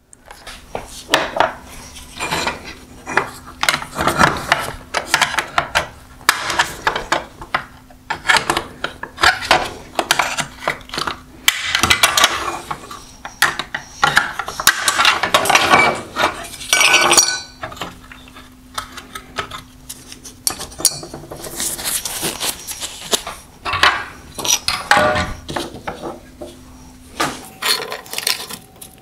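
Plastic welds being pried and snapped off metal headlight reflectors to free the LED drive units: an irregular run of clicks, cracks and scraping, with the metal reflector pieces clinking against each other and the bench.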